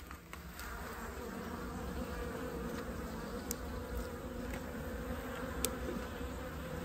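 Honeybees buzzing steadily over an open hive during a frame inspection: the even hum of a strong colony.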